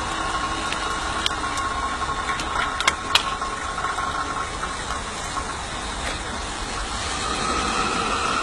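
Steady hiss and whirr around a coal-fired steam locomotive being fired, with a few sharp metallic clinks of coal being shovelled into the firebox, about a second in and twice around three seconds in.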